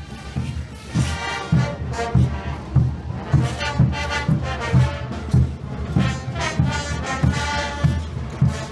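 Brass band playing festive dance music over a steady bass drum beat, about two beats a second.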